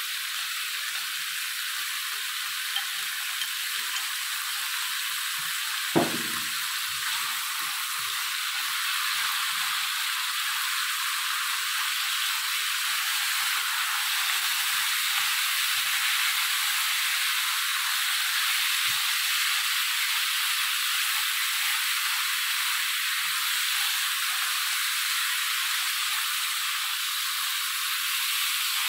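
Food sizzling steadily in hot fat in a frying pan, with one sharp knock about six seconds in.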